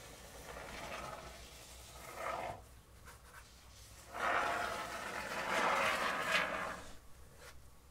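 Can of expanding spray foam hissing as foam is sprayed into gaps at the ceiling: a softer spurt early, then a longer, louder spray of about three seconds.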